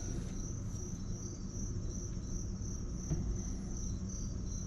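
Cricket chirping steadily, a rapid, evenly pulsing high trill over a low steady hum.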